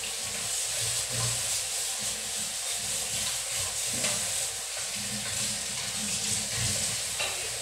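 Kitchen faucet running steadily into a stainless steel sink while dishes are rinsed and rubbed by hand, with small knocks of dishware.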